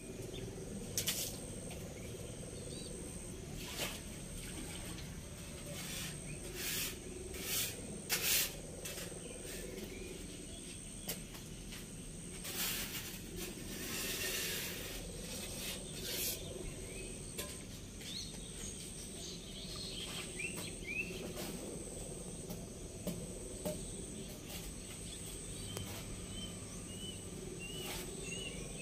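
Background ambience with a steady high insect-like drone, occasional sharp clicks and knocks, and short falling bird chirps, coming in a quick series near the end.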